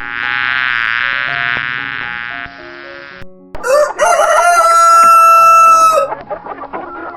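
A rooster crowing once, a long held crow starting about halfway in, the loudest sound here. Before it, a wavering buzzy animal call, with soft piano music underneath.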